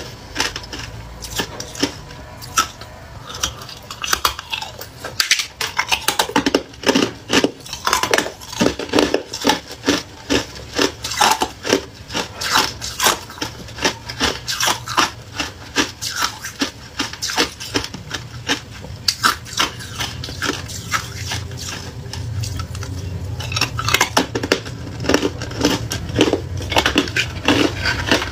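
Hard clear ice being bitten and crunched between the teeth: a dense, irregular run of sharp cracks and crunches. Ice pieces clicking against a plastic ice mould tray as they are pried out.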